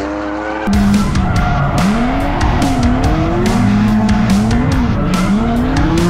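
Drift cars sliding on a track: engines revving up and down in repeated rising and falling sweeps, with tyre squeal. Over the first moment a held chord of background music fades out as the car sound cuts in.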